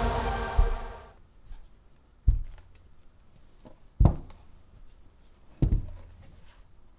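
3D-printed plastic sculpture pieces set down one after another on a cloth-covered table: four dull thuds about 1.7 seconds apart. Electronic music fades out during the first second.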